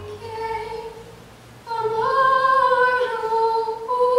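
Wordless female singing without accompaniment: long held notes that step from one pitch to the next, getting louder about a second and a half in.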